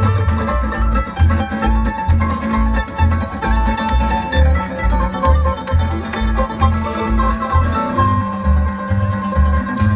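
Bluegrass string band playing an instrumental break: upright bass plucking steady notes about twice a second under banjo, acoustic guitar and mandolin, with no singing.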